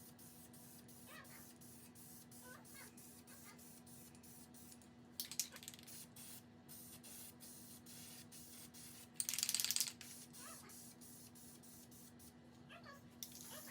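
Spray paint hissing in two bursts: a short one about five seconds in, then a longer, louder one about nine seconds in. Faint high calls come and go between them.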